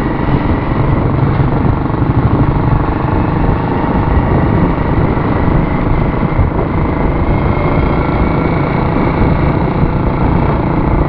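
Motorcycle being ridden at a steady pace, its engine and road noise running evenly.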